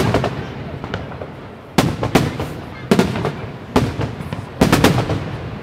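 Aerial firework shells bursting: a loud bang about every second, then several in quick succession near the end.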